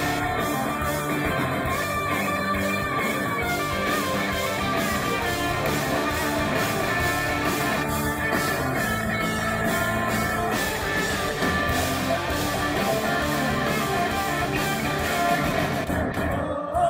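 Hard rock band playing live on stage, with electric guitars, bass and drums.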